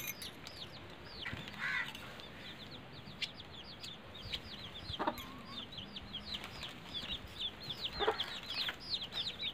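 Chickens calling: a steady run of short, high peeps that fall in pitch, about three a second, with a few lower clucks about two seconds in and again near the end.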